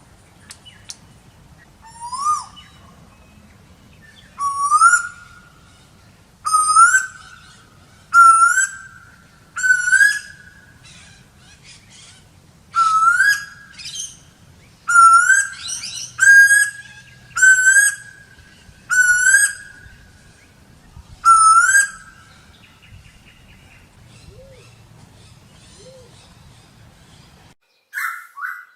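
Asian koel calling: a series of about a dozen loud whistled notes, each sliding upward, repeated every one to two seconds, which stops about 22 seconds in. Two short, louder calls come just before the end.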